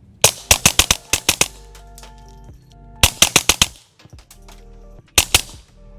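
Suppressed Kel-Tec P17 .22 LR pistol fired rapidly through a budget E22 rimfire suppressor: three quick strings of muffled shots, about eight, then five, then two, the shots that follow "sounds really good". Faint background music underneath.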